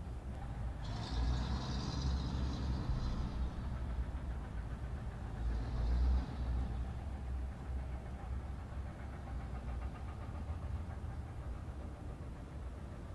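Low, steady rumble of vehicle engines, with a hiss from about a second in and a shorter one around six seconds in.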